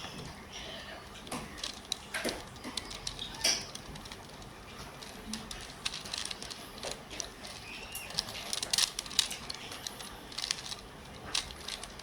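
Rubik's Cube being turned by hand during a solve: irregular plastic clicks and clacks as the layers are twisted, in quick flurries with short pauses between them.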